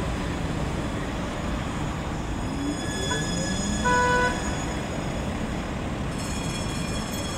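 Tram running, with a whine that rises in pitch, a short horn toot about four seconds in, and a high thin squeal near the end.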